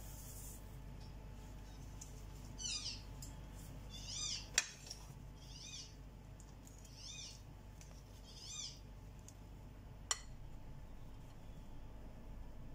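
A small animal's high calls, five of them about a second and a half apart, each rising then falling in pitch. Two sharp clicks, one about midway and one later, with the first the loudest sound.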